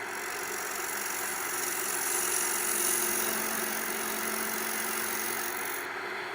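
Wood lathe running steadily while a turning tool cuts the spinning maple bowl blank, a continuous hiss of shavings over the motor's hum. The cutting hiss stops a little before the end, leaving the lathe's hum.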